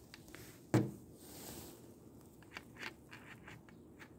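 KD torque wrench being handled: one sharp metallic clack about three-quarters of a second in, followed by a few faint scattered clicks.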